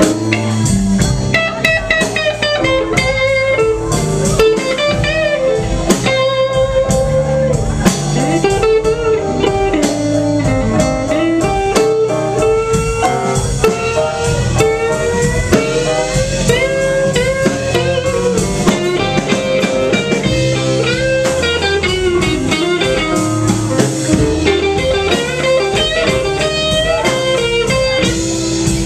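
Live blues band playing: electric guitar lines with bent notes over electric bass, drum kit and keyboard.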